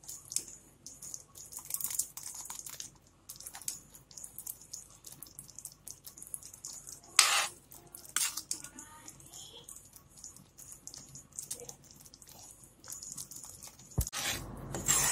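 Steel spoon stirring thick tamarind-jaggery chutney in a kadhai, with irregular scraping and light clicks of the spoon against the pan. There is a louder knock about seven seconds in and a sharp click near the end.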